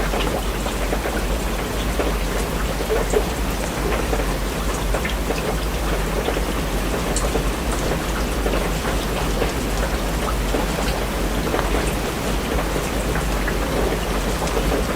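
Steady rain falling on a surface, many individual drops ticking through the hiss, over a steady low rumble.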